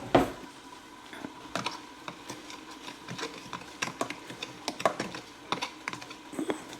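A fork stirring dry cornmeal, flour and seasoning in a bowl, with irregular clicks and scrapes as it knocks against the bowl. A sharper knock right at the start.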